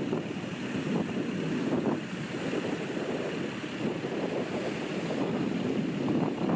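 Ocean waves washing and sloshing at the shore, with a few small splashes, over a steady rush of wind on the microphone.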